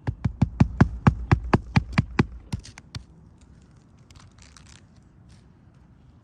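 A hammer driving roofing nails into shingles during a roof repair: a quick run of about fifteen sharp strikes over three seconds, then a faint rustle.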